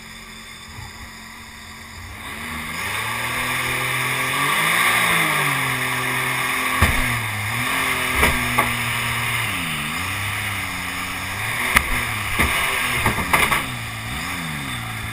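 Mini jet boat's engine throttling up about two seconds in, its pitch rising and falling several times as the throttle is worked, over rushing water. Several sharp knocks in the second half, most in a cluster near the end, from the hull striking rocks in the shallow river.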